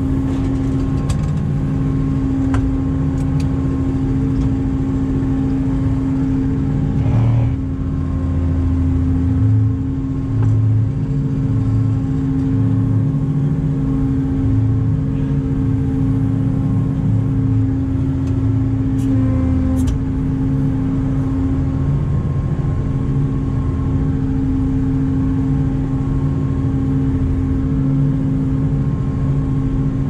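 Combine harvester's diesel engine running steadily, with a constant droning tone over a low, uneven rumble and a few faint clicks.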